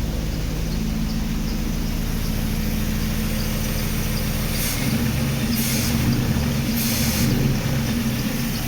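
Mercedes W124's M119 V8 idling, then revved from about five seconds in, with a short hiss at each of three throttle blips before it settles back to idle. The revs now rise in response to the throttle; the owner thinks the engine is running rich.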